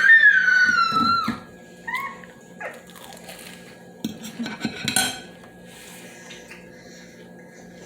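A high-pitched drawn-out squeal that rises and then slowly falls over the first second and a half, followed by a couple of short squeaks, then scattered clinks of cutlery against plates and dishes.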